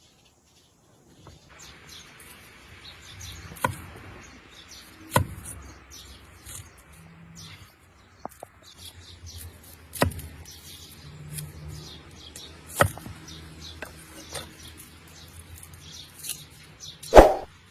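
Birds chirping over a faint steady background, with scattered sharp knocks and clinks about every couple of seconds; the loudest knock comes near the end.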